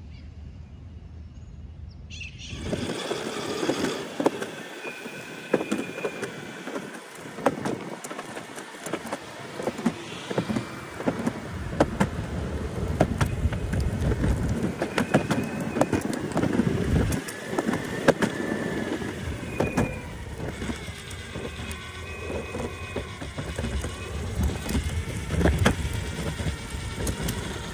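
Meepo Envy NLS 3 electric skateboard rolling fast over a concrete path: a steady roar from the wheels, with frequent clicks as they cross the pavement joints and a faint motor whine that rises and falls with speed. It starts a couple of seconds in, after a quiet opening.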